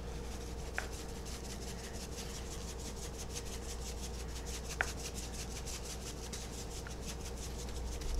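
Dry seasoning rub shaken from a plastic shaker bottle, the granules rattling in quick repeated shakes and pattering onto raw beef ribs.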